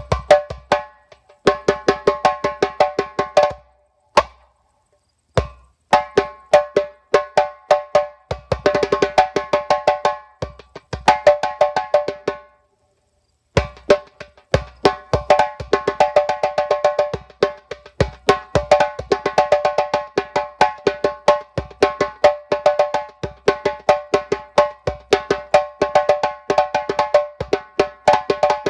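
Djembe played with bare hands: fast runs of sharp, ringing strokes in rhythmic phrases, broken by short pauses, the longest about 13 seconds in, then an unbroken stretch of playing to the end.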